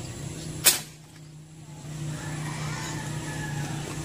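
A single sharp airgun shot about two thirds of a second in, over a steady low hum.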